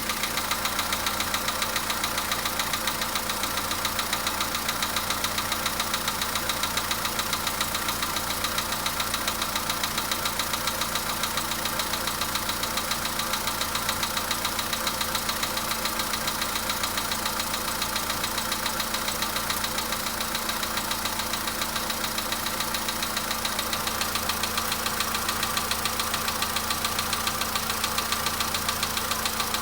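Volkswagen Polo sedan's 1.6 litre four-cylinder CFNA petrol engine running at a steady speed, with a rapid, even knocking from inside the engine: the knock that the owner is recording as a fault.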